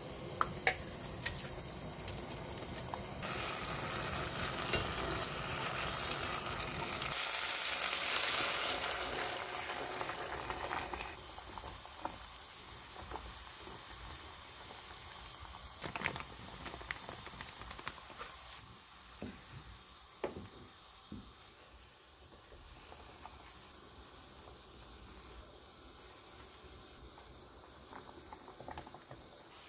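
Food sizzling in hot oil in a pan, loudest a third of the way in, then giving way to a quieter pot of soup boiling, with a few short clicks.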